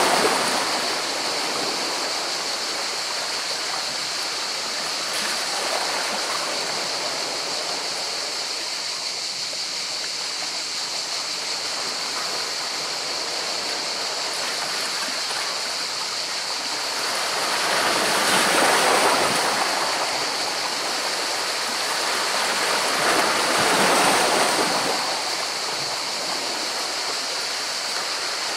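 Sea waves washing in over rocks: a steady rush of water that swells into louder surges at the start and twice in the second half.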